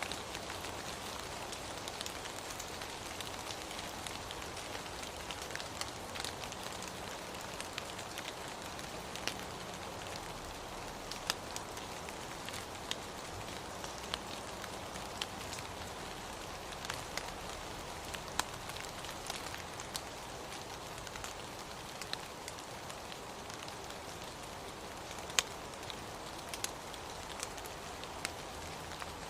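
Steady rain falling, a constant hiss with scattered individual drops ticking sharply on a surface.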